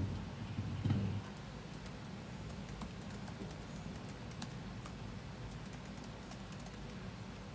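Fingers typing on a laptop keyboard: a steady patter of light key clicks. There are a few heavier low thumps in the first second.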